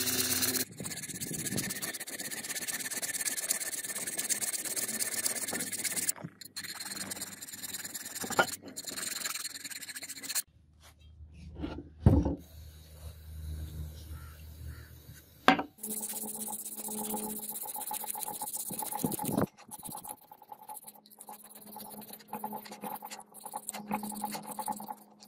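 Hand file rasping across a cast brass sword guard, then sandpaper rubbing over the wet brass, in several abruptly changing stretches. A few sharp knocks stand out, the loudest about twelve and fifteen seconds in.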